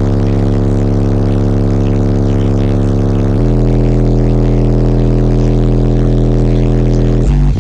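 Very loud bass music played through four Resilient Sounds Platinum 18-inch subwoofers, heard from inside the vehicle's cabin. Long held bass notes change once about three and a half seconds in and again briefly near the end.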